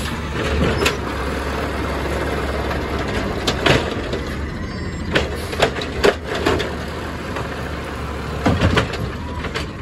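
Garbage truck's Amrep automated side-loader arm lifting a wheeled recycling cart, dumping it over the hopper and setting it back down, over the steady running of the truck's natural-gas engine and hydraulics. Several sharp bangs and clatters from the cart and arm come from about three and a half seconds in, as the cart is shaken out at the top and lowered.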